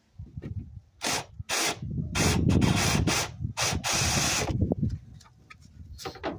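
Cordless drill with a step drill bit boring a hole through a Land Rover Freelander's body panel beside the headlight. The drill is run in several short stop-start bursts, the bit grinding through the panel, with one more brief burst near the end.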